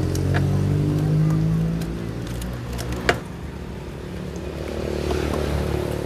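A motor vehicle's engine running close by, its pitch rising over the first two seconds as it pulls away, then rising again near the end. A single sharp click comes about three seconds in.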